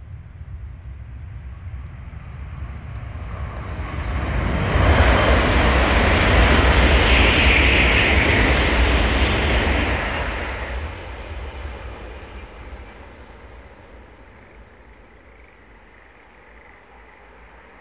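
Shinkansen bullet train passing at high speed: a rushing roar of air and rumble that swells over a couple of seconds, stays loud for about five seconds, then fades away.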